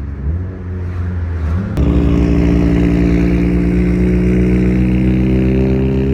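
A loud car engine and exhaust running low, then jumping sharply louder a little under two seconds in, with its pitch slowly climbing as it revs up.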